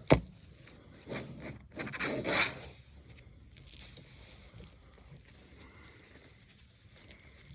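Feathers being pulled by hand from a scalded chicken carcass: two tearing rips, about one and two seconds in, then softer rubbing, with a sharp knock at the very start.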